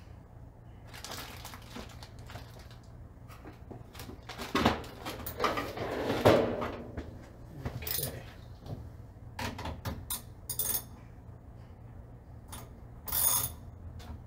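Hand tools clinking and knocking on metal in scattered sharp clicks, with a couple of louder knocks about a third of the way in and a short rattle near the end, as a wrench is found and fitted to the inverter's terminal bolts.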